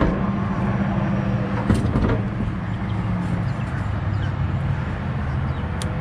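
A vehicle engine idling steadily, with two short sharp clicks, one about two seconds in and one near the end.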